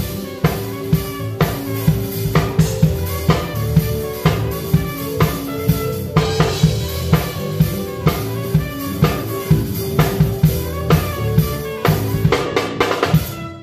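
Live band music led by a close drum kit, with snare and bass drum keeping a steady beat of about two hits a second under held notes from the other instruments. Near the end the drums play a quick fill and the band stops.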